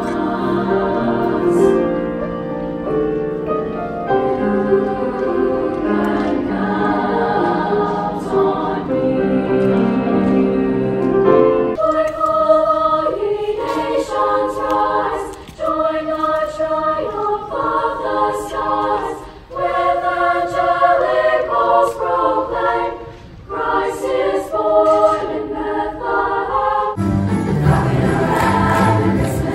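High school choir singing a Christmas song. Lower voices carry the first part; about twelve seconds in, higher voices take over in phrases with short breaks. Near the end the singing gives way to other music.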